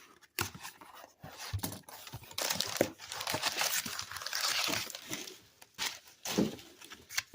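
Cardboard shipping box being opened by hand: packing paper and cardboard crinkling and tearing, with scattered handling knocks. The rustling is heaviest from about two to five seconds in.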